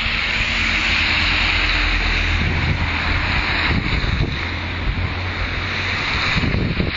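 Traffic on a wet road: a steady hiss with a low hum underneath, and wind rumbling on the microphone.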